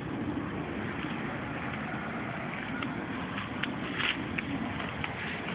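Steady rush of moving floodwater, with small splashes and ticks scattered through it, the loudest about four seconds in.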